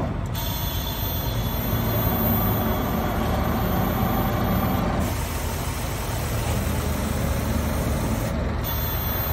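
Heavy truck diesel engines running at low revs: a steady low rumble.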